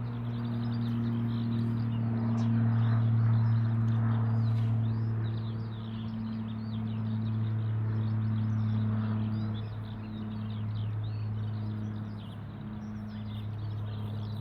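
Birds chirping in quick, overlapping calls over a steady low hum that runs throughout and is louder than the birds.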